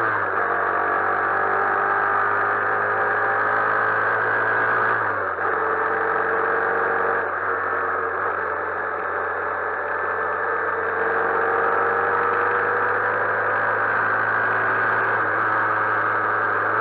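Honda CB125E motorcycle's single-cylinder engine running at road speed, its pitch climbing steadily, with a short dip about five seconds in where it drops back lower, under a steady rush of wind and road noise.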